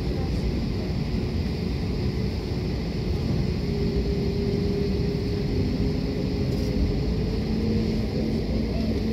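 Airbus A320 cabin noise on the ground: a steady rumble with a faint whine that rises slightly in pitch about halfway through.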